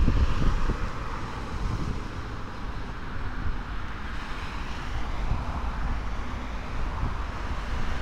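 Wind buffeting the microphone over a steady hum of road traffic, the wind louder for about the first second and then easing.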